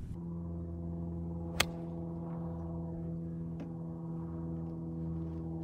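A golf club strikes a golf ball once on a full approach shot: a single sharp click about one and a half seconds in. A steady low hum with a few even tones lies under it.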